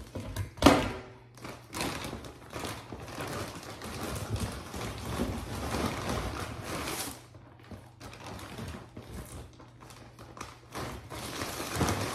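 Kitchen handling noises while cooking: a sharp thump about a second in, then several seconds of rustling and light taps, quieter in the second half.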